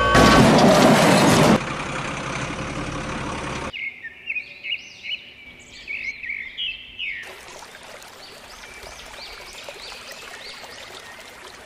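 A loud rush of noise for about a second and a half, easing to a steadier hiss that cuts off suddenly. Then birds chirping in short calls over quiet. From about seven seconds in, a steady rush of water pouring over a weir comes in, with the birds still chirping.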